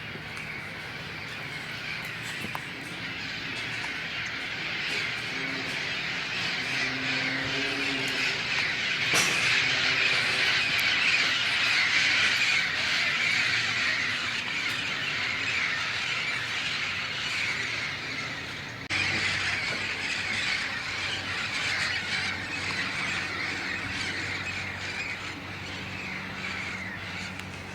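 A large flock of parrots squawking in a dense, continuous chorus of overlapping calls. It swells louder toward the middle, eases off, then jumps suddenly louder about two-thirds of the way in.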